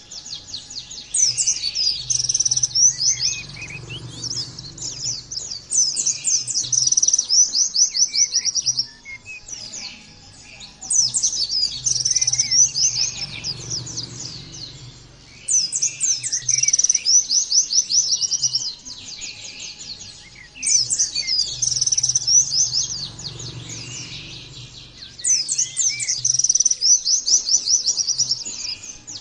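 Pleci (white-eye) singing long, rapid, high-pitched chattering song phrases, about six of them, one roughly every five seconds.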